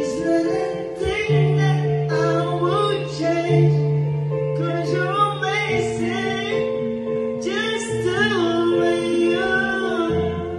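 Karaoke: a man singing into a handheld microphone over a backing track.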